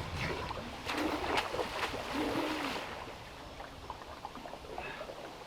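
River water splashing and sloshing as a flathead catfish is wrestled out of its hole by hand, with a few sharp splashes in the first two seconds, then quieter lapping.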